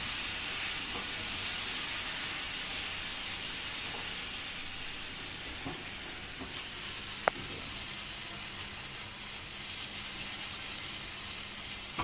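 Spinach purée sizzling in a hot frying pan as it is stirred into fried spices with a silicone spatula, the steady sizzle slowly dying down. A single sharp tap sounds about seven seconds in.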